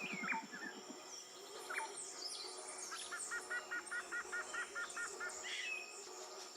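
Forest birds calling: scattered chirps and short whistled sweeps, with a quick run of about a dozen repeated notes around the middle. Under them runs a steady high insect drone.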